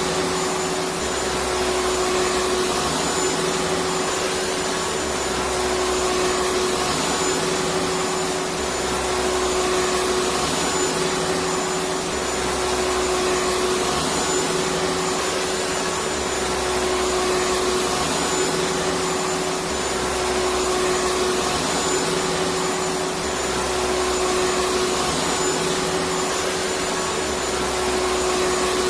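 Electric vacuum cleaner running steadily: a constant rushing noise with a steady motor whine and a faint low throb recurring every few seconds.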